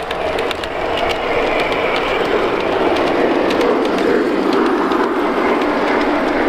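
G-scale (LGB) model trains rolling along the track: a steady rumble of the wheels with scattered small clicks, growing louder about a second in as a Union Pacific 844 steam locomotive model passes close by.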